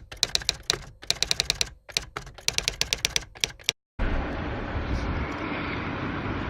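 Typewriter key clicks in quick runs, several a second, for almost four seconds, cutting off abruptly. After a short gap a steady outdoor rush of wind and distant traffic begins.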